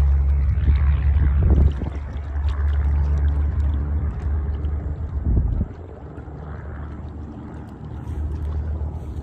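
Wind buffeting a phone's microphone outdoors: a loud low rumble with rushing noise, easing off a little past halfway.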